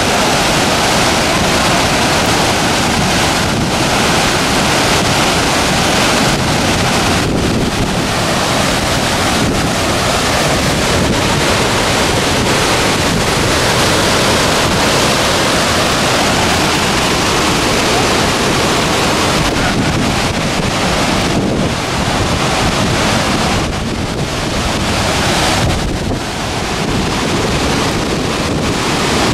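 Steady loud rushing noise, with a few brief dips near the end.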